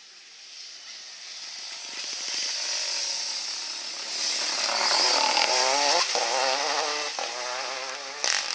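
Renault Clio rally car's engine approaching at high revs, loudest as it passes. The pitch swings up and down and drops sharply as the car comes through the bends, then climbs again as it pulls away. A short sharp crack comes near the end.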